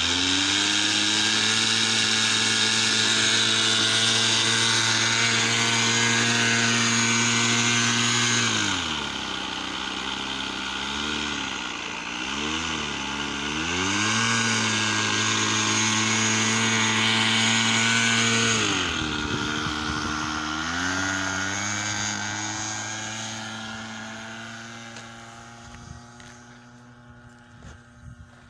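Radio-controlled model airplane's motor and propeller running at high throttle, easing off about nine seconds in and revved up and down a few times, then back up to full. Near the end it drops in pitch and fades away as the plane takes off and flies off.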